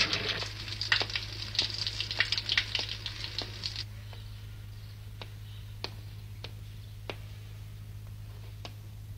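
Water running from a street pump's spout into a bucket, splashing, cutting off about four seconds in. After that come faint, evenly spaced footsteps, about one every two-thirds of a second.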